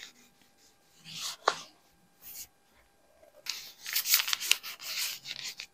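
Rustling and rubbing of plastic grocery packaging being handled and wiped down. It comes in irregular bursts: a short one about a second in, another just after two seconds, and a longer run of rustling near the end.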